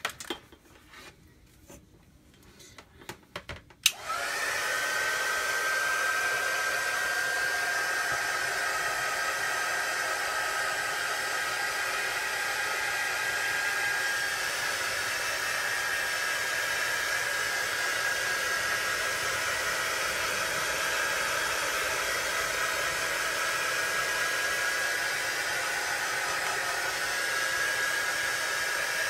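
Handheld hair dryer switched on about four seconds in, then running steadily: a rush of air with a thin high whine. It is drying freshly applied chalk paste on a glass pane.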